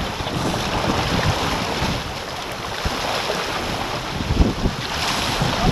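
Wind buffeting the microphone over the rush of water along a J/24 keelboat's hull under sail, with a hiss of spray swelling near the end.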